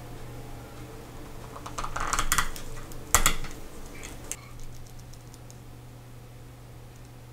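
Light clicks and taps of small watch parts and tools being handled on the bench: a quick cluster about two seconds in, one sharper click a little after the middle, then a few fainter ones, over a steady low hum.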